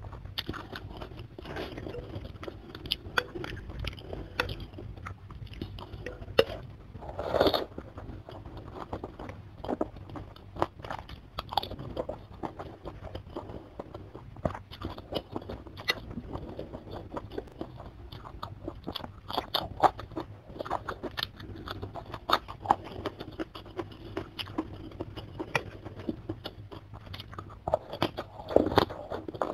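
Close-miked eating sounds of a bowl of chicken soto with glass noodles: wet chewing, crunching and slurping of noodles. There are louder bursts about seven seconds in and again near the end.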